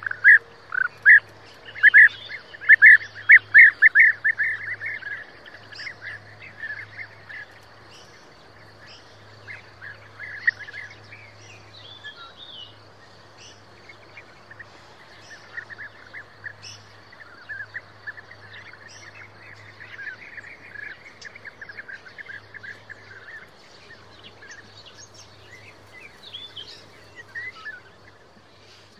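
European bee-eaters calling: a quick run of loud, short, repeated calls in the first few seconds, then fainter, scattered calls for the rest.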